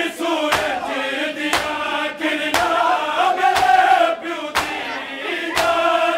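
Shia mourners chanting a Punjabi noha in unison over a lead reciter, with matam chest-beating strokes landing about once a second.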